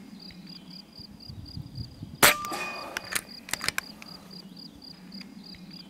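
A 6.35 mm AEA Varmint HP PCP air rifle fires one shot a little over two seconds in: a single sharp crack followed by a brief ringing. About a second later come a few quick metallic clicks.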